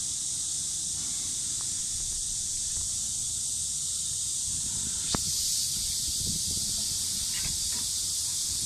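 Steady high-pitched hiss over a low rumble, with a single sharp click about five seconds in.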